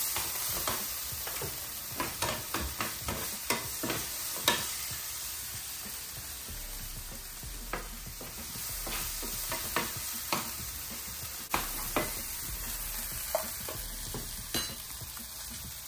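Onions and peppers sizzling in a hot frying pan with a steady hiss, while a utensil stirs them, tapping and scraping against the pan, most often in the first few seconds.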